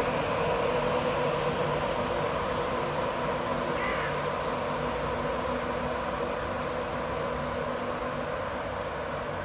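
Electric InterCity 225 train (Class 91 locomotive, Mark 4 coaches and driving van trailer) pulling away: a steady running noise with a low hum that slowly fades as it recedes. A crow caws briefly about four seconds in.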